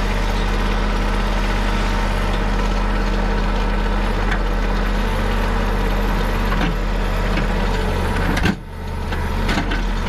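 Compact tractor's engine running steadily as it is driven, with a brief sudden drop in level about eight and a half seconds in.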